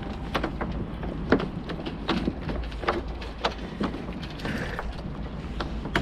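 Irregular clicks and knocks of mast-lowering gear and rigging on a sailboat, several a second, over a steady low rumble of wind on the microphone.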